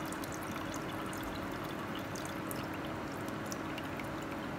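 Milk pouring steadily from a glass jug into a stainless-steel pot of hot milk.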